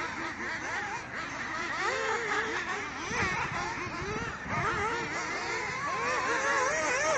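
Radio-controlled off-road buggies running on a dirt track, their engines' high whine rising and falling over and over as the throttle is worked through the turns and jumps.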